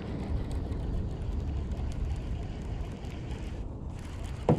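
Steady low rumble on the microphone, under a baitcasting reel being cranked on the retrieve after a cast, with one short thump near the end.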